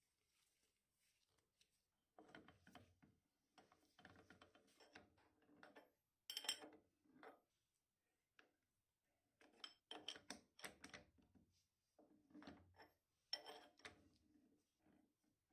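Faint clinks, knocks and scraping of steel parts and hand tools as a dividing head's index plate and crank arm are fitted, in several short spells, with the sharpest clinks about six and thirteen seconds in.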